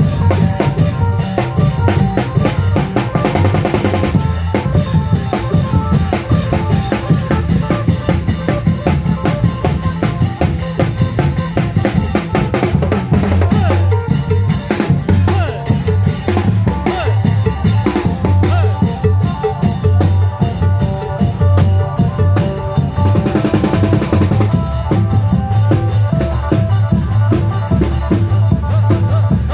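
Isan long-drum (klong yao) band playing live: a steady rhythm of deep drum beats and sharp percussion strikes over a held melodic line.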